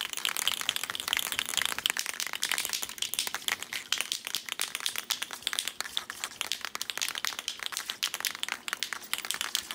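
Aerosol can of Krylon ColorMaxx gray primer being shaken hard, its mixing ball rattling in rapid, uneven clacks.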